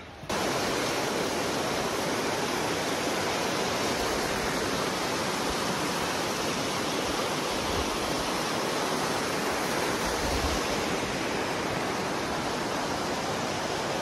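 Shallow, rocky mountain river rushing over rapids: a steady, dense rush of water that cuts in suddenly just after the start.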